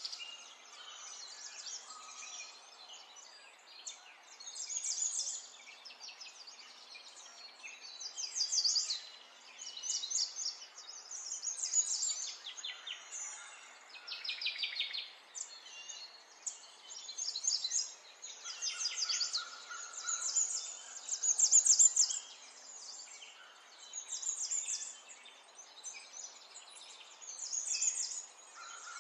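Small birds chirping, in short high rapid trills that come every second or two over a faint steady hiss.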